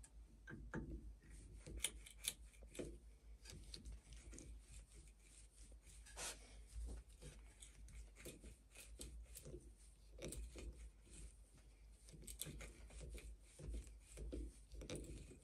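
Pocket-knife awl being twisted into a block of softwood, giving faint, irregular scraping and small creaking clicks as the steel point grinds into the wood fibres. The awl is blunt and bores slowly.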